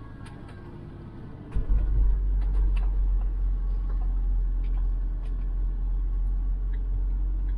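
Motorhome on the move: a low road rumble that jumps much louder about a second and a half in and holds there, with small rattles and clicks over it.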